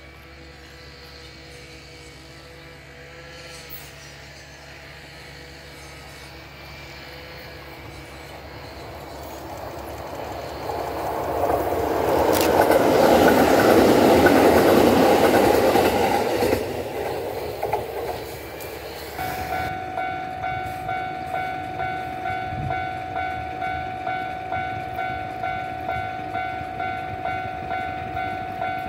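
Kintetsu electric train passing close by: wheel and motor noise builds, peaks for a few seconds and then stops abruptly. After that a Japanese level-crossing alarm rings steadily at about two dings a second, warning of an approaching train.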